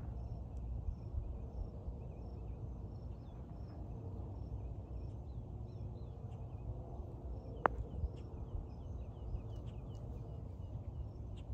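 A single sharp click of a putter striking a golf ball about two-thirds of the way through, over birds chirping repeatedly and a low steady background rumble.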